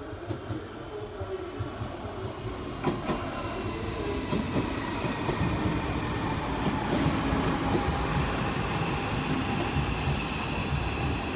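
Tobu 500 series Revaty electric limited-express train pulling alongside, growing louder. Its wheels rumble on the rails, with a sharp rail-joint click about three seconds in, and steady high whining tones come in as the cars pass close.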